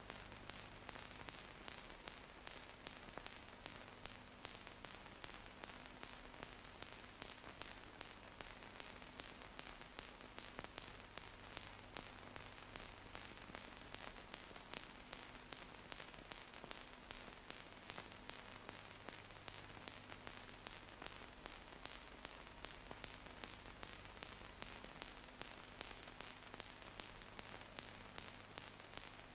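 Near silence: the steady hiss of an old film soundtrack, with frequent small clicks and a faint low hum.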